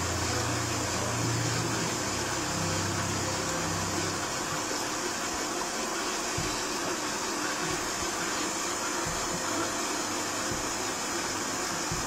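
Robot vacuum cleaner running, a steady whirring noise of its fan and brushes; a low hum under it breaks off about four seconds in.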